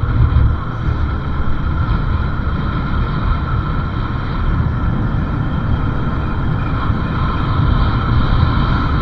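Motorcycle on the move: steady engine and road noise with a low rumble of wind on the microphone.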